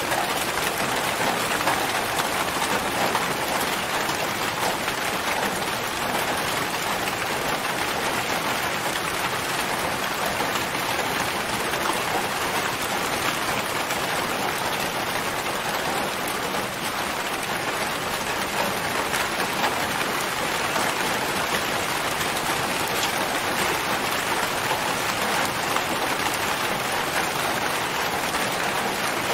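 Steady rain falling on a tent: an even wash of many small drops, with no single loud hits standing out.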